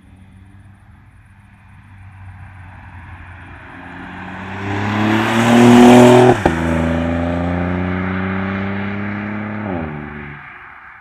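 BMW F70 1 Series car with an aftermarket valved catback exhaust accelerating past, its exhaust note growing louder to a peak about six seconds in. A brief sharp break follows, then it holds steady before the note drops and fades away near the end as it eases off.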